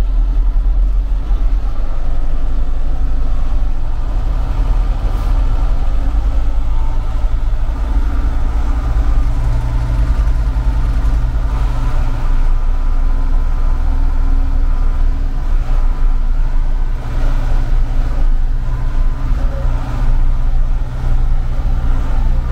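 Mercedes-Benz MB-trac tractor's diesel engine running steadily.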